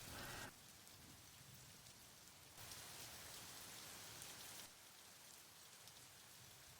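Near silence with a faint hiss of rain that comes and goes in short stretches.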